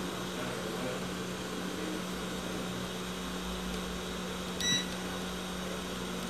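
A digital multimeter's continuity beeper sounds once, briefly, about three quarters of the way in, as the probes touch a shorted point on the TV panel's circuit board. The beep signals near-zero resistance, the short the technician suspects is a failed capacitor. A steady low hum runs underneath.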